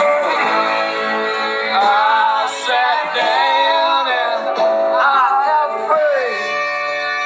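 Background music: a song with a singing voice over guitar and sustained accompaniment.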